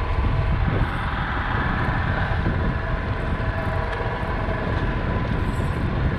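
A boat's engine running steadily: a low rumble with a constant hum of several tones over it.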